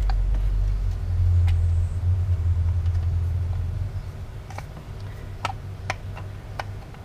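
A low rumble that fades out about four seconds in, then a few light clicks and knocks as the 12 V wiper motor's armature and magnet housing are worked together by hand.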